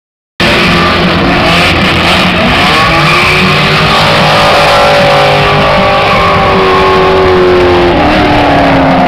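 Drift cars sliding through a corner, engines revving hard over tyre noise. The engine note climbs, then slowly falls and drops near the end. The sound cuts in abruptly about half a second in.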